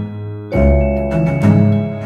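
Background music: held, ringing pitched notes, with a new chord coming in about half a second in.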